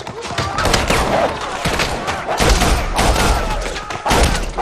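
Film gunfight: repeated gunshots, several in quick succession, over a dense mix of other action sound.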